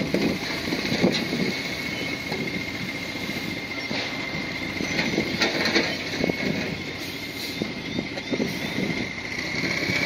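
Bulldozer diesel engine running steadily under work, with a steady high whine over the rumble and a few brief knocks.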